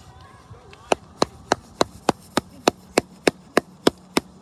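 Sharp knocks repeating at an even pace, about three a second, starting about a second in.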